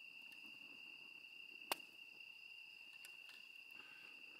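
Cricket trilling steadily, one high unbroken note, with a single sharp click just under two seconds in.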